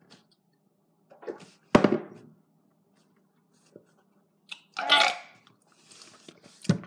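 A man gagging and heaving in the throat after gulping down a foul smoothie, in about four short bursts with quiet between them.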